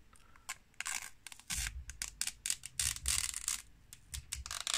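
Protective plastic film being peeled off a radio's display screen, crackling and rustling in irregular bursts that start about half a second in and grow denser and louder after about a second and a half.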